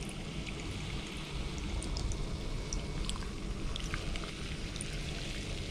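Carbonated lemon chūhai pouring from a can into a plastic cup of ice: a steady splashing pour with many small crackles of fizz and ice.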